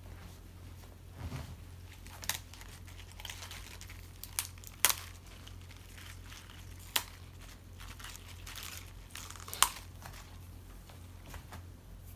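Fresh leaf lettuce rustling and crinkling as the leaves are handled and laid on a wooden cutting board, with about five sharp crisp clicks spread through, over a steady low hum.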